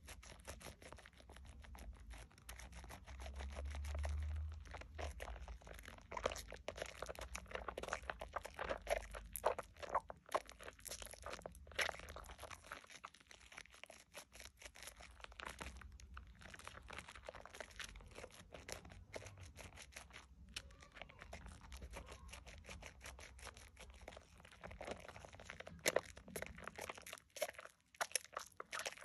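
Wet hands squeezing and rubbing a bar of Dove shea butter soap into thick foam over a bowl of soapy water: a dense, irregular crackle of small wet clicks from the lather and bubbles, with a low rumble swelling about four seconds in.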